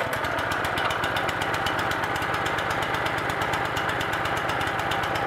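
Honda GX four-stroke single-cylinder engine on a hydraulic log splitter running steadily with an even, fast firing beat, just after being pull-started with the choke still closed.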